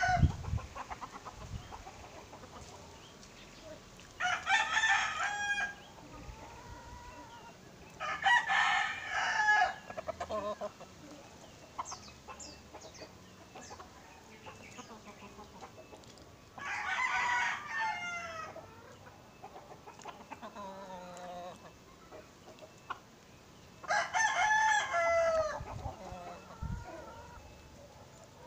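Roosters crowing: four full crows spaced several seconds apart, about a second, a quarter, two and a half and three quarters of the way through, with softer short calls in between.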